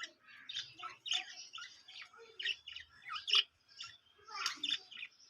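A flock of pet budgerigars chirping and chattering: many short, overlapping chirps and warbles at once.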